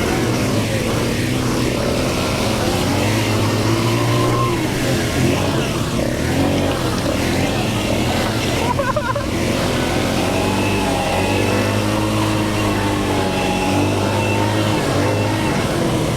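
ATV engine running under way while being ridden, its pitch rising and falling with the throttle.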